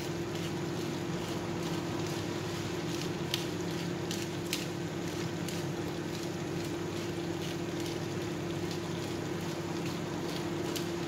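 Chicken in sauce simmering in a wok on a gas burner, with a steady low hum underneath and a few faint clicks.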